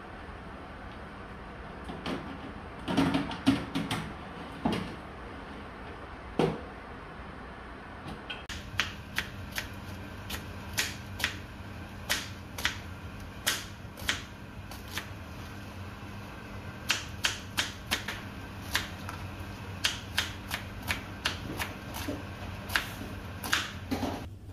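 A kitchen knife slicing red onion and ginger on a plastic cutting board: a series of sharp, short taps, one or two a second, from about eight seconds in. Before that, a few clattering knocks as a metal baking tray is slid into the oven.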